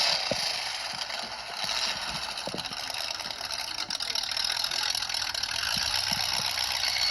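Demolition derby car's engine running steadily, with a mechanical clatter.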